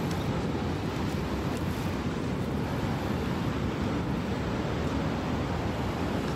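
Steady roar of Niagara's Horseshoe Falls, the water plunging into the gorge, with some wind rumbling on the microphone.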